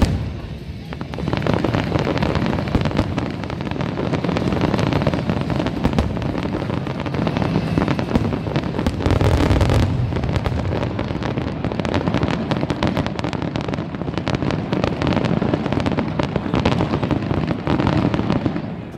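A fireworks finale: a continuous barrage of overlapping bangs and crackling from bursting shells, with a heavier deep boom about nine seconds in. The barrage stops suddenly near the end.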